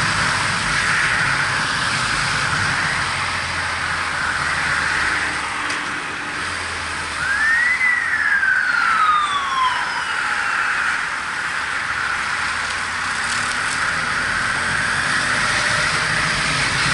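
Steady wind and road rush on a helmet-mounted camera riding a BMW F700GS motorcycle, with the bike's parallel-twin engine running low underneath. About halfway through, a single high whine rises quickly and then slides down over about two seconds.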